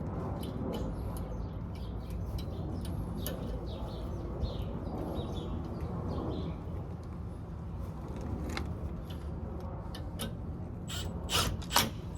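Socket ratchet clicking in irregular runs as bolts on the leaf spring brackets are tightened, with a few sharper metal clicks near the end.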